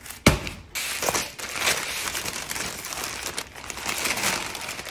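A paper-wrapped whole fish set down on a wooden counter with a single thump just after the start, then butcher paper crinkling and rustling as it is pulled open and unfolded.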